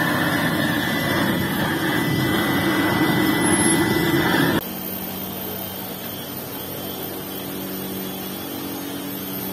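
Gas torch burning steadily with a loud rushing flame, held into a refractory-lined ladle to heat it. It cuts off abruptly after about four and a half seconds, leaving a quieter steady hum.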